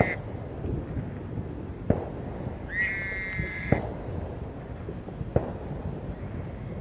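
Gray tree frog giving a short musical trill about three seconds in, the tail of another trill just at the start. A few sharp knocks come at intervals over a steady night background.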